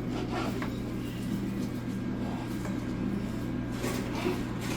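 Kitchen knife slicing raw chicken breast on a cutting board: a few soft, irregular knocks over a steady low hum.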